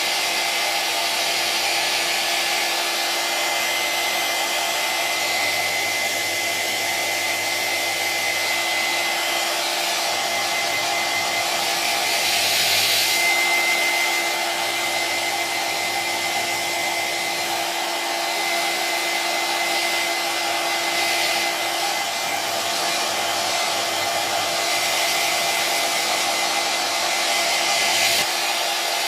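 Electric hair dryer running continuously: a steady rush of blown air with a thin, steady high whine from the motor, swelling a little about halfway through.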